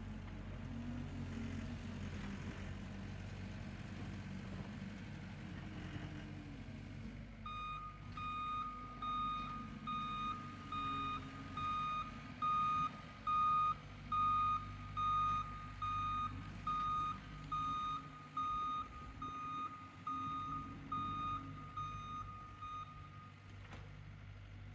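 Diesel equipment engine running steadily; about a third of the way in, a backup alarm starts beeping a steady single tone roughly once a second as the machine reverses, then stops shortly before the end.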